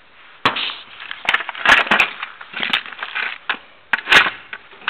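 Rummaging through a toolbox of small parts and fittings: irregular clattering, scraping and knocking, with several sharp clacks, the loudest about half a second in and about four seconds in.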